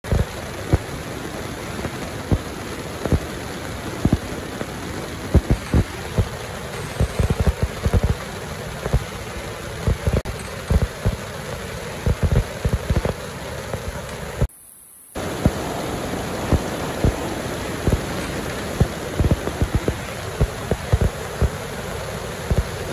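Kwik Lok bag-closing machine running amid packing-line machinery: a steady mechanical noise with frequent irregular clicks and knocks. The sound cuts out for about half a second about two-thirds of the way through.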